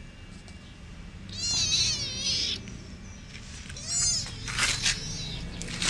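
A young kitten meowing, high-pitched cries: one long meow starting about a second in, then three shorter ones in the second half.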